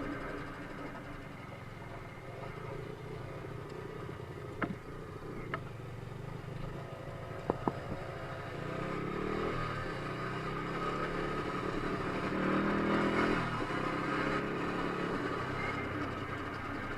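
Motorcycle engine running, its pitch climbing twice as it revs up, with a few sharp clicks in the first half.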